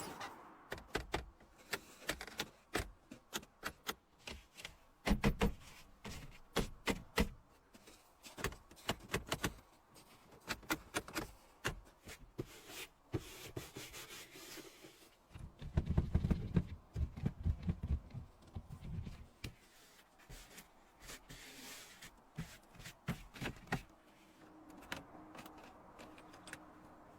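Irregular series of sharp knocks and clicks, with a louder stretch of low thuds a little past the middle.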